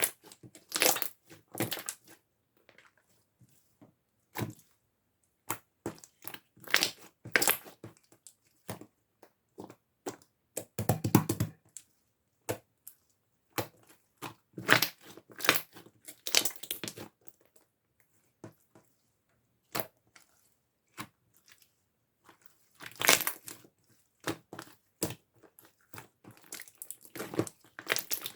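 Hands squeezing and pressing clear slime: sticky crackling and popping clicks in short bouts, with quiet pauses between.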